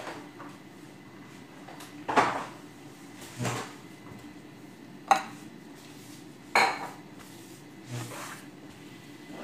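Dough being worked in a glass mixing bowl on a kitchen counter, the bowl knocking and clunking: five separate knocks about every second and a half, some with a short ring.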